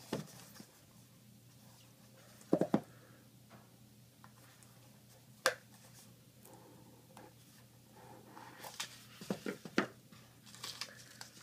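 Small cardboard knife box handled and opened by hand: a pair of sharp knocks, a single click, then a cluster of rustling, scraping and knocks near the end as the box comes open.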